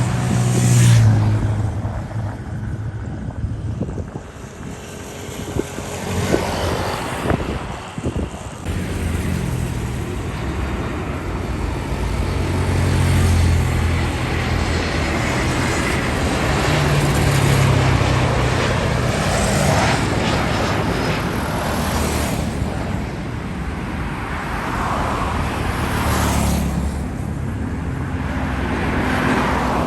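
Continuous outdoor mix of jet airliner engine noise and road traffic, a low engine rumble that swells and fades several times.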